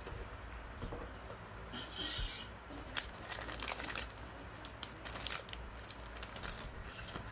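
Plastic model-kit runners being handled in their clear plastic bag: the bag rustles and crinkles. There are scattered light clicks and scrapes of plastic and cardboard being moved about.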